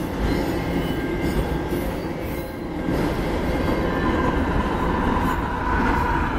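Freight train of autorack cars rolling past, wheels and cars rumbling steadily with a sustained high wheel squeal. Toward the end a mid-train GE AC45CCTE diesel-electric locomotive passes by.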